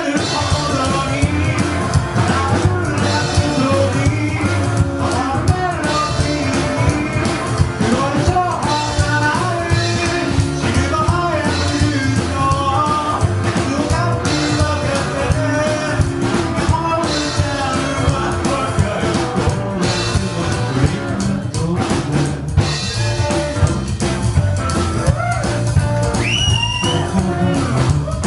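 Rockabilly band playing live with a singer, drum kit and guitar over a steady beat.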